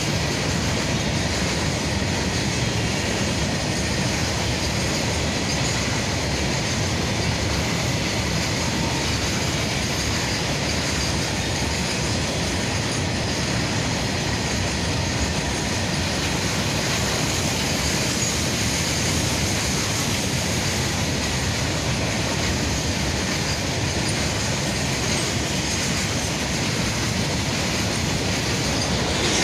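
Loaded BOBR bottom-discharge hopper wagons of a freight train passing at speed: a steady rumble and rattle of steel wheels on the rails.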